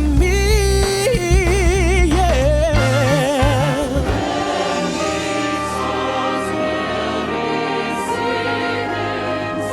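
Christmas choral music: a single voice sings with wide vibrato over deep sustained bass notes, then about four seconds in a choir takes over, holding full sustained chords.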